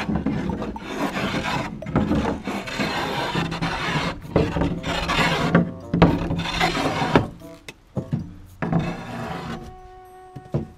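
Repeated rough rasping strokes on wood, a board being worked with a tool, broken by short pauses; the strokes thin out after about seven seconds as background music comes in.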